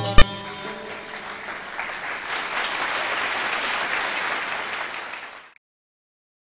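A plucked string instrument ends its piece with a sharp final stroke just after the start. Audience applause follows, swelling over the next couple of seconds, and cuts off suddenly about five and a half seconds in.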